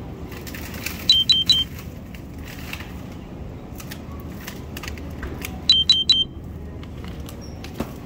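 Three short, high electronic beeps, repeated once about four and a half seconds later. They are the loudest sounds, over light metallic clinks and rattles and the steady background noise of a supermarket.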